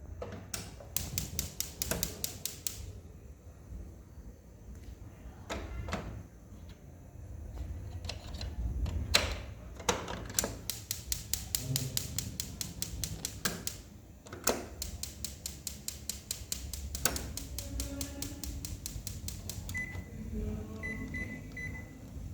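Japanese domestic gas stove being tested: burner knobs clicked on and the igniter ticking rapidly in runs of a second or more, with a few short beeps from the stove's controls near the end.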